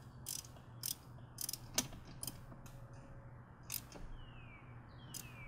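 Ratchet wrench being turned on a car battery's terminal clamp nut, giving short bursts of ratcheting clicks at irregular intervals, most of them in the first three seconds, as the terminal is tightened.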